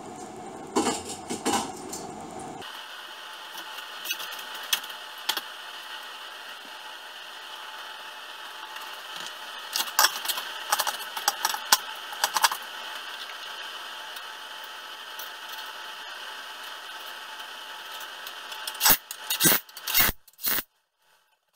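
Metal clinks and rattles as a wheel and its fittings are handled onto a steel hub, with a busier run of clinking about ten seconds in. Near the end a cordless power driver gives four short bursts as it runs the wheel's nut on.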